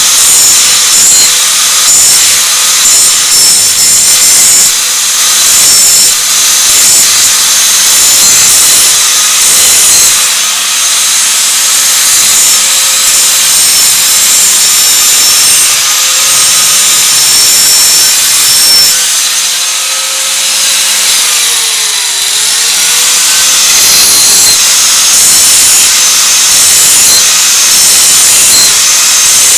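An electric grinder grinding the cutting edge of a steel lawnmower mulching blade: a loud, steady, hissing grind. The motor's pitch dips and recovers about twenty seconds in.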